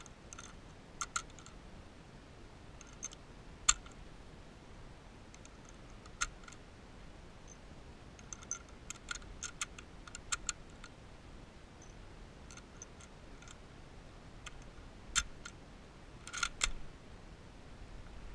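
Faint, scattered clicks and taps from handling a Mosin-Nagant bolt-action rifle while it is held and aimed, with a small cluster of clicks near the end.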